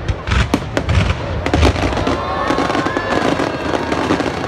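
Fireworks going off: a rapid series of sharp bangs in the first two seconds, turning into denser crackling with rising and falling whistling tones in the second half.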